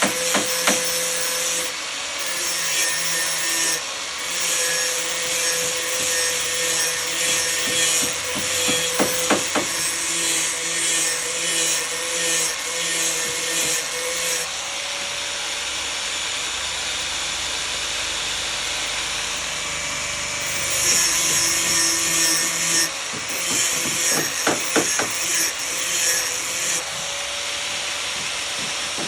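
Woodworking tool noise: wood being sawn and rubbed, with a few clusters of sharp knocks.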